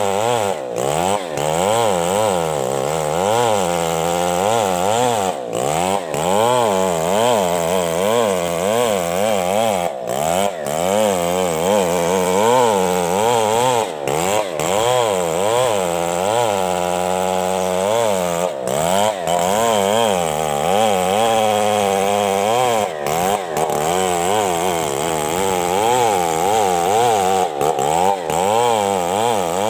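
Stihl chainsaw at full throttle, ripping a coconut trunk lengthwise. The engine's pitch wavers up and down continuously as the chain bites into the wood, with a few very brief breaks.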